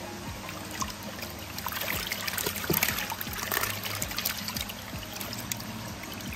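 Water splashing and trickling, building to a burst of splashing in the middle, from koi being handled in water during a mud-pond harvest.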